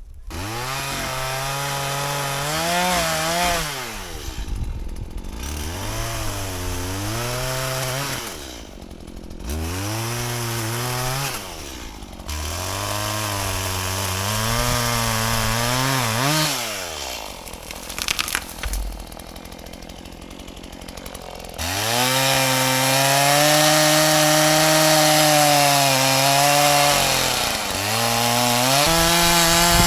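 Stihl MS180 two-stroke chainsaw cutting wood, its engine repeatedly revved up to full throttle and falling in pitch again, several times in a row. About two-thirds of the way through it drops to a low idle for a few seconds, then runs at full throttle again.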